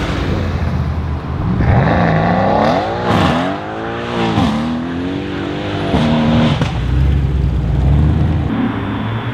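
Mercedes-AMG C-Class estate engine revving hard as the car accelerates away with wheelspin, its pitch climbing, dropping sharply at two gear changes and climbing again. Near the end a second car's engine rumbles lower and steadier at low revs.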